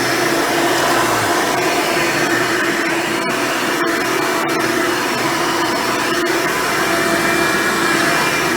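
Hoover Elite upright vacuum cleaner running steadily with an even whine, its 7-amp motor and seven-bladed fan driving a dual-row brush roll.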